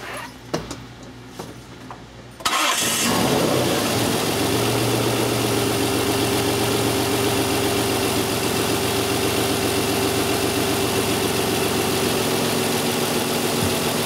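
The 2002 Isuzu Rodeo's 3.2-litre V6 is started about two and a half seconds in. It catches after a brief crank and settles into a steady idle just after startup.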